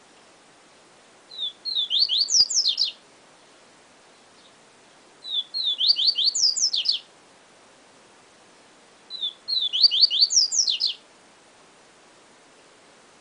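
A papa-capim seedeater (Sporophila) singing the 'siu siu professor' song. There are three phrases about four seconds apart. Each lasts about a second and a half: a few short notes, then a quick run of high, sharp, downward-slurred whistles.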